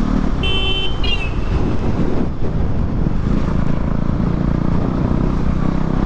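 KTM motorcycle engine running at road speed with wind noise across the microphone. About half a second in, a short high-pitched tone sounds, followed by a shorter falling one.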